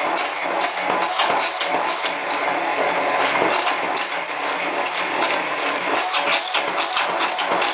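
Handheld immersion blender running steadily, emulsifying soy milk and oil into mayonnaise as the oil is poured in gradually, with many quick clicks and clatters over the motor's steady noise.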